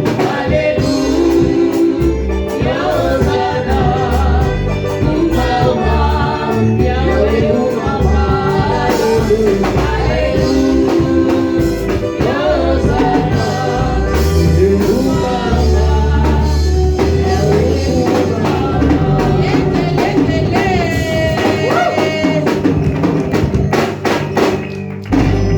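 Gospel worship music: a congregation or choir singing over a band with keyboard and bass, which stops just at the end.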